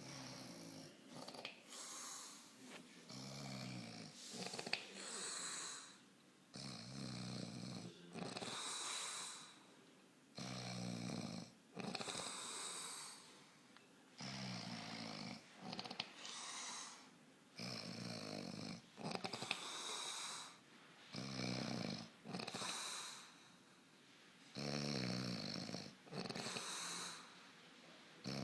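A man snoring in his sleep. A low rattling snore on each in-breath is followed by a breathy out-breath, repeating steadily about every three to four seconds.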